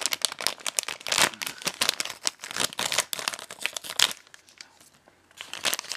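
Paper hot-snack bag crinkling and tearing as it is torn open along its perforated tear-off line, with a short lull after about four seconds.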